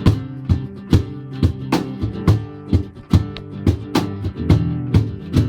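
Acoustic guitar strumming chords under beatboxed percussion that keeps a steady beat of about two hits a second, with no singing.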